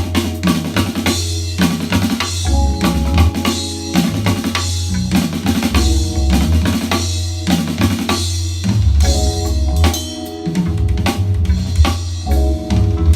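Music with a drum kit and deep, heavy bass, played through a pair of Klipsch RP150M bookshelf speakers with a subwoofer and picked up by a phone's microphone in the room.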